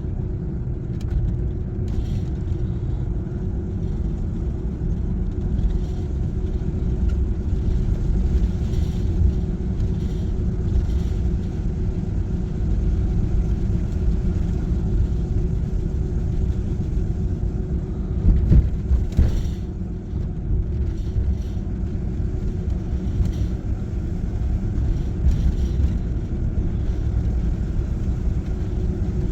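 Campervan engine and road noise heard from inside the cab while driving: a steady low rumble with a constant hum. A few knocks come about two-thirds of the way through.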